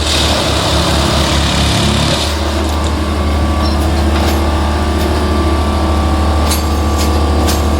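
Plasser & Theurer track maintenance machine's engine running steadily with a deep drone, with a few sharp clicks or knocks near the end.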